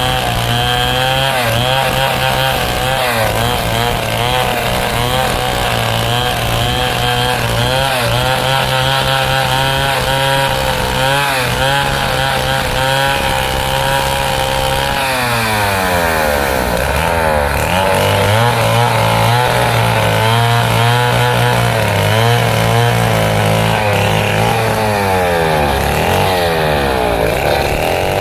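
Stihl chainsaw running under load, ripping a large teak log lengthwise, its engine note wavering with the cut. About fifteen seconds in the revs drop and sweep, then climb back and hold steady, and fall off again near the end.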